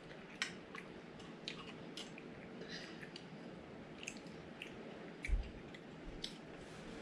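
A person chewing food, with scattered small clicks of eating and one soft low thump about five seconds in, over a faint steady hum.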